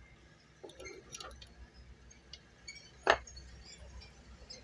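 Small metal clinks and clicks from the exposed underside mechanism of an industrial sewing machine as its link parts are handled and hooked into place by hand. A few light clinks come about a second in, and one sharper click about three seconds in.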